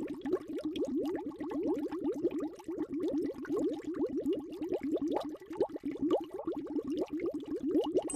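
Underwater bubbling sound effect: a steady stream of small bubbles, each a short rising blip, several a second.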